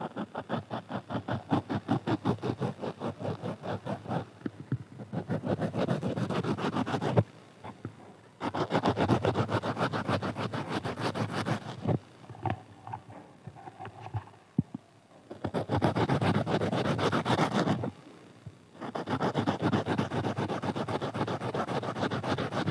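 A knife slicing a raw onion in quick repeated strokes, several cuts a second, in runs broken by short pauses; the onion is cut into many pieces still held together at the root.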